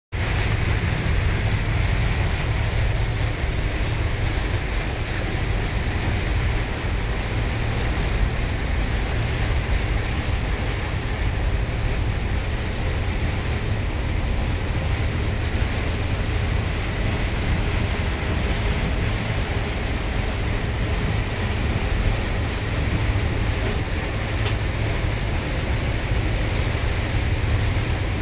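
Steady cabin noise of a bus driving on a highway through heavy rain: a deep rumble of engine and tyres under an even hiss of rain and wet road.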